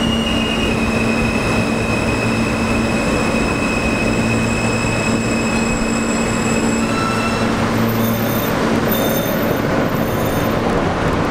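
NYC Subway R160 car running, a steady electric motor whine over wheel and rail noise. About seven seconds in, the whine shifts pitch and breaks up as the train brakes toward a stop.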